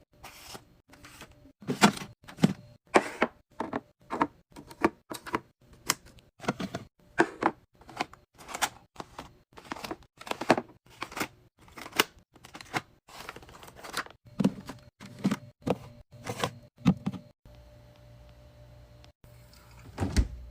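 A rapid run of short knocks and taps, about two or three a second, broken by abrupt cuts, with a low steady hum in the last few seconds.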